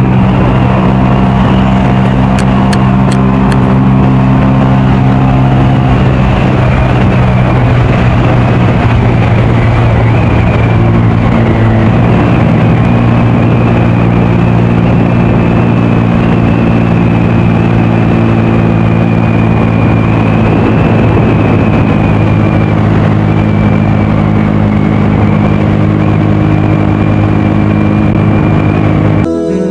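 Motorcycle engine running at a steady cruise, holding a mostly even note, with heavy wind rush over the microphone.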